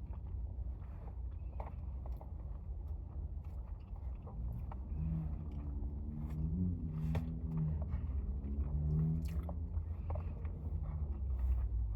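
Close mouth sounds of eating noodles: chewing and biting with many small wet clicks and smacks over a steady low rumble. From about four seconds in, a low droning tone comes and goes for several seconds, shifting slightly in pitch.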